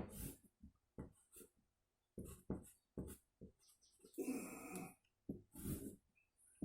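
A pen drawing on cardboard: a string of short scratchy strokes, with one longer, squeaky stroke a little past the middle.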